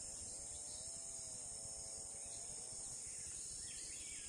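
Steady high-pitched chorus of crickets and other insects, with a faint wavering tone over roughly the first three seconds.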